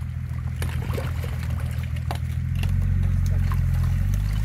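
A vehicle engine idling steadily, a little louder from about two and a half seconds in, with small splashes and knocks of someone digging with a shovel in icy marsh water among reeds.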